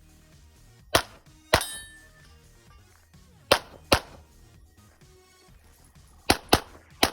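Smith & Wesson M&P 2.0 pistol shots fired in quick pairs, with steel targets ringing as they are hit: seven sharp reports, the last three close together.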